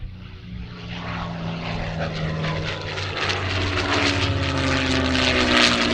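P-51 Mustang's V-12 engine running in flight with a propeller drone, growing louder toward the end as its note slowly falls in pitch.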